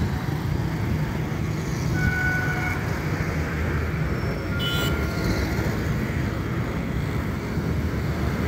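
Steady vehicle engine and road traffic noise, heard from a moving vehicle on a city street. A short beep sounds about two seconds in.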